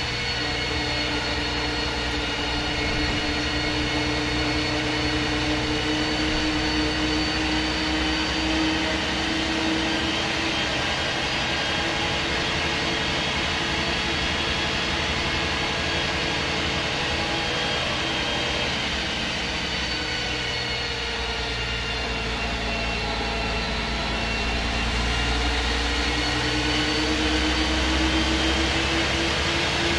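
MAN SD202 double-decker bus with its MAN D2566 MUH six-cylinder diesel running under way through a Voith Diwa 851 automatic gearbox. The engine note rises, falls back a little past the middle, then rises again near the end.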